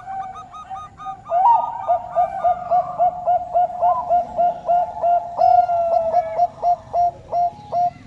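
Zebra dove of the Bangkok-bred song strain cooing: a long, rapid series of short hooked coos, about three a second.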